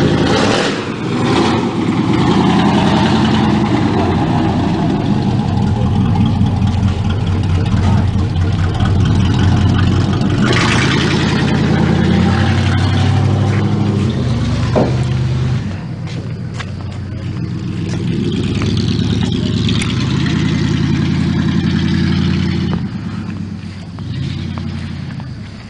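A car engine running loud and steady, revving up and down. It dips about halfway through, picks up again, and dies down near the end.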